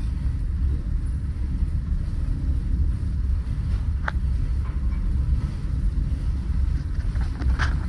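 Steady low rumble on board a car ferry under way. A short, sharp sound stands out about four seconds in, and a few fainter ones come near the end.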